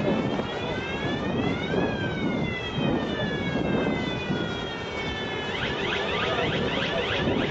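Machinery of a bridge-girder launching gantry: a pitched whine with several overtones rises for about two seconds, then slowly falls and dies away about five and a half seconds in, over a steady low rumble. A rapid run of short rising chirps takes over near the end.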